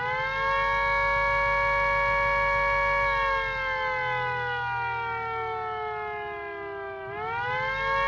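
Mini 3D-printed two-ended air raid siren, an electric motor spinning plastic rotors weighted with steel washers, sounding at full pitch as two close tones. About three seconds in, the power is released and it winds down slowly, the heavier rotors holding speed, before it is powered again near the end and winds back up quickly. A low motor hum runs underneath.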